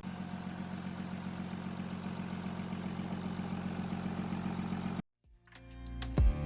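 Audi A5's 3.0 TDI V6 diesel engine idling steadily after its timing chains have been replaced; it cuts off abruptly about five seconds in, and music fades in near the end.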